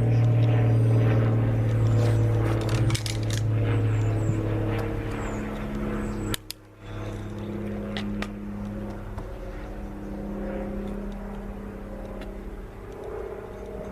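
A steady low motor hum, like an engine running, with a few light sharp clicks. The hum cuts out briefly about six and a half seconds in, then carries on more quietly.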